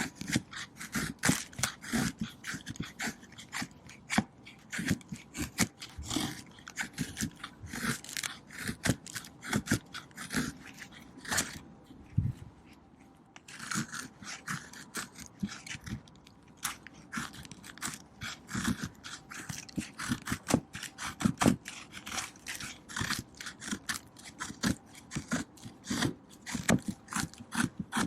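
Knife blade shaving a stick of wood in quick repeated scraping strokes, as in carving a feather stick, with a short pause about halfway through.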